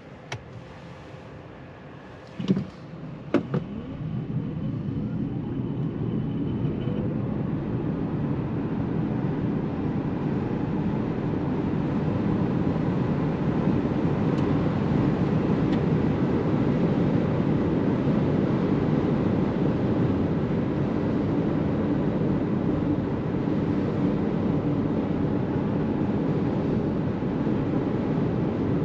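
Interior of an Opel Mokka-e electric car pulling away: two sharp clicks, then tyre and wind noise build steadily for about ten seconds and level off into a steady roar at speed, with a faint rising whine from the electric motor as it accelerates.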